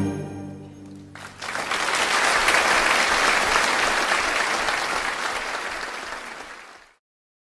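The last held chord of a piece dies away, then audience applause breaks out about a second in, holds and gradually fades before cutting off abruptly near the end.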